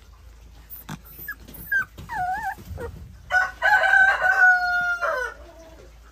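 Pungsan dog puppy whining in a few short high squeaks, one of them wavering, then giving one long high howl of about two seconds that falls off at the end.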